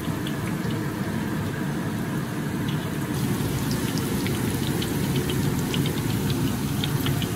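Shredded taro deep-frying in hot oil in a wok: the oil sizzles and crackles, with scattered small pops that come thicker from about three seconds in. A steady low hum runs underneath.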